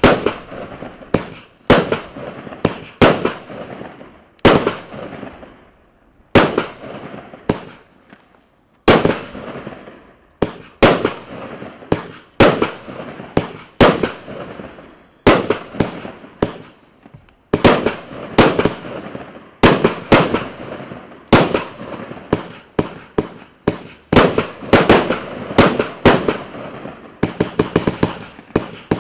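A 100-shot, 30 mm Klasek 'Fireworks show 100' firework cake firing shot after shot: sharp bangs about one to two a second, each dying away quickly. There is a short lull about eight seconds in and a faster run of bangs near the end.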